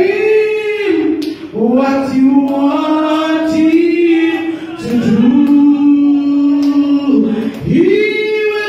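Unaccompanied singing in slow phrases of long held notes, each held for a second or two, with short breaks between phrases.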